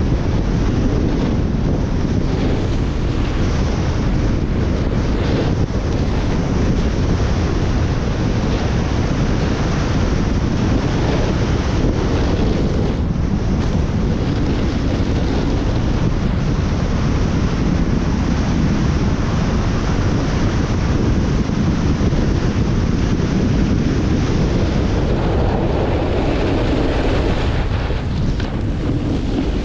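Steady wind rushing over a GoPro's microphone as a snowboard slides fast down a groomed run, with the hiss of the board on the snow mixed in.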